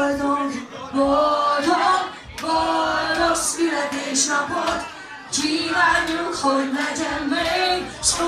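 A woman singing a dance-pop song live into a handheld microphone over backing music, in short phrases with held notes.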